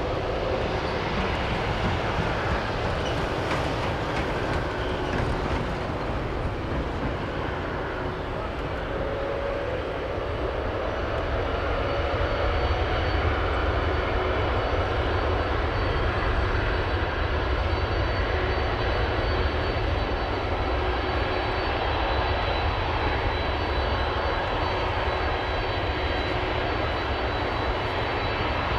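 Jet engines of a Boeing 747-400 freighter running at taxi power: a steady rumble with a thin high turbine whine, growing a little louder about halfway through as the aircraft comes nearer.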